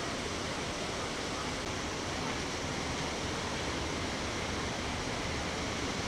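Large man-made waterfall pouring over a stone wall into a shallow pool, giving a steady, even rush of falling water.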